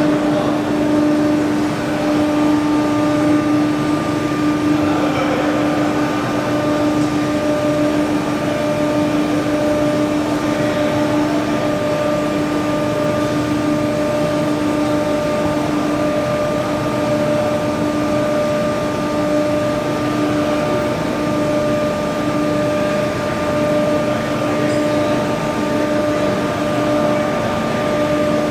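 CNC tube bending machine running: a steady hum over an even mechanical whir, with no distinct strokes or pauses.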